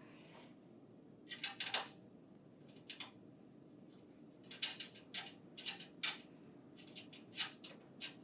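Faint short clicks and scrapes, in small irregular groups, of a screwdriver turning screws in to fasten the 550-sheet tray to the printer.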